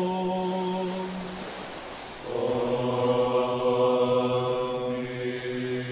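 Greek Orthodox (Byzantine) chant by male voice, holding long steady notes: one note fades out about a second and a half in, then a lower note starts about two seconds in and is held to the end.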